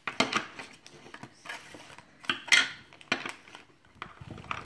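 Small plastic toy pieces clicking and tapping as they are handled and set onto a little plastic shelf piece on a tabletop, a string of irregular light clicks with a short louder rustle about two and a half seconds in.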